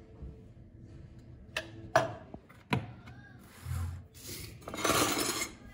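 Kitchen handling noises: a few sharp clicks and knocks, then bursts of rubbing noise close to the microphone as the filming phone is moved.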